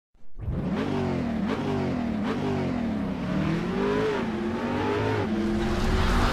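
A motorcycle engine revving in a string of quick blips, its pitch rising and falling over a low rumble, then holding a steadier, louder note near the end.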